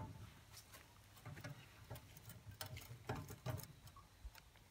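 Faint, irregular small clicks and scrapes of a silicone spatula stirring scrambled egg in a Lodge 6.5-inch cast iron skillet.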